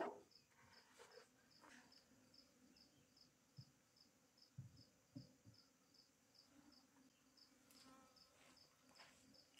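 Faint honeybee buzzing around a freshly stocked box hive, with an insect chirping steadily about two and a half times a second. A few soft wooden knocks come as the hive lid is set in place, the first and loudest at the start and others a few seconds in.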